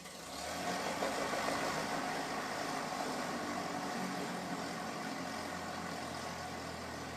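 Light aircraft piston engine catching and running steadily after a hard start, rising from quiet to full running noise within the first half second and then holding steady.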